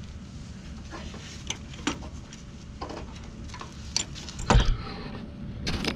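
Scattered clicks and knocks of a linear actuator and its metal mounting bracket being handled and fitted against a pickup truck's frame, with a heavier knock about four and a half seconds in.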